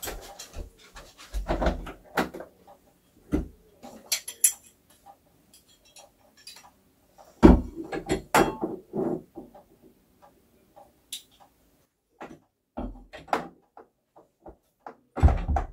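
Over-door hooks being hung on the top edge of a door: scattered knocks, clicks and clatter of the hooks against the door, with a heavier thump about seven and a half seconds in.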